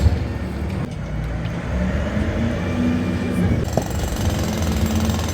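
A machine's engine running steadily with a low rumble, and a couple of short clicks or knocks over it.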